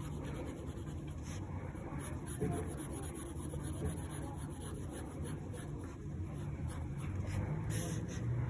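Faint scratching of a graphite pencil on sketchbook paper in short, irregular strokes, shading in a line.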